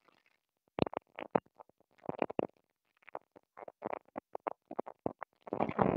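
Headset microphone line crackling and clicking in short, irregular bits that cut in and out with silence between them, during a signal check.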